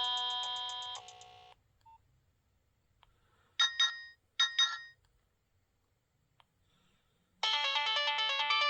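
Nokia 6030 mobile phone playing polyphonic ringtones through its small speaker. One tune ends on a held chord that fades out within the first second and a half. Two short pairs of high beeps come around the middle, and a new busy, fast melody starts about a second before the end.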